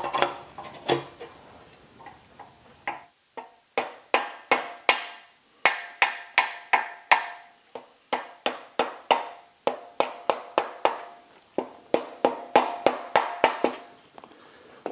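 Rubber mallet tapping a cast aluminium cover down onto its long mounting bolts to seat it. It makes a long series of quick sharp taps, about two or three a second with short pauses, each leaving a faint ring.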